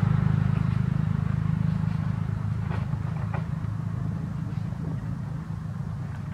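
Motor vehicle engine running steadily as a low hum that slowly fades.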